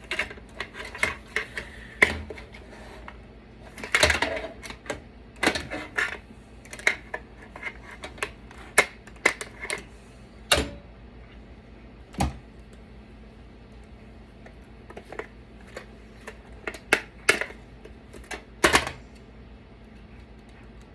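Parts of a CD-ROM drive being pried and popped apart with hand tools: irregular clicks, snaps and knocks of metal and plastic, with a few louder cracks, then a short lull near the end.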